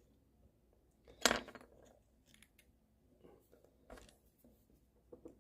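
A sewing needle scraping lint off the roller inside a vintage ball mouse: faint scratching and small ticks, with a sharper click about a second in and another near four seconds.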